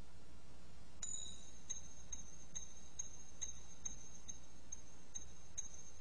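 A click about a second in, then a high, thin metallic ringing held steady, marked by evenly spaced ticks a little over two a second.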